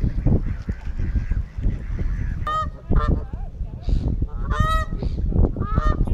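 Canada geese honking: several short calls in the second half, over a steady low rumble.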